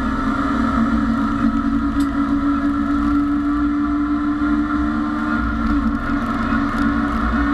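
Engine of a BMW E30 race car heard from inside the stripped-out cockpit, running hard at steady high revs under racing load. Its pitch steps down slightly about five and a half seconds in, with road and tyre noise underneath.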